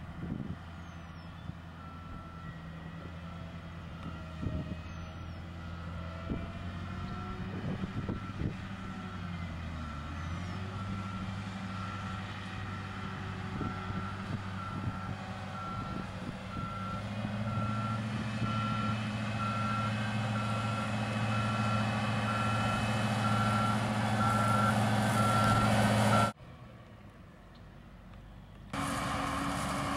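Backup alarm on heavy equipment beeping steadily over a running engine; the engine works harder and grows louder from about halfway. Near the end everything cuts off suddenly for a couple of seconds before the engine sound returns.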